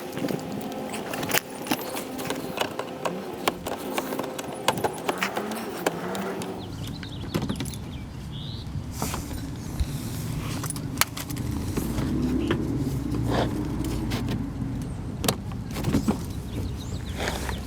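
Irregular metallic clicks and clinks of hand tools and small fasteners while a car's plastic lower shroud is unbolted, joined about six and a half seconds in by a steady low rumble.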